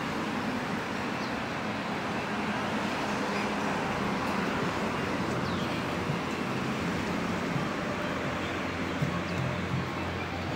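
Steady street ambience: an even hiss of traffic noise. A low bass line like background music comes in near the end.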